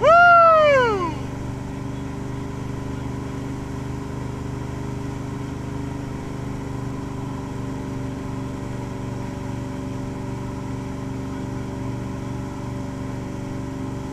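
Towboat engine running steadily at wakesurfing speed, a constant low drone. Right at the start, a loud whoop from a person, its pitch rising then falling over about a second.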